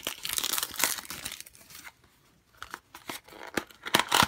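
Crinkling and crackling of a thin plastic blind-box bag being handled. It comes in two spells with a short quiet gap in the middle, and the sharpest crackles come near the end.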